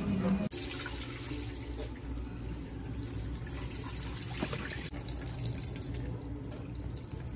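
Wet, watery rubbing as coarse salt is worked by hand over whole raw tilapia on a plate.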